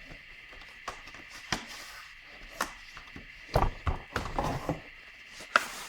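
Board game boxes and components being handled and unpacked: scattered light knocks and taps, with a stretch of rustling handling noise in the middle.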